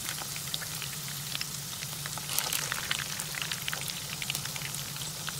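Batter-coated chicken strips deep-frying in hot oil: a steady sizzle with many small scattered crackles and pops.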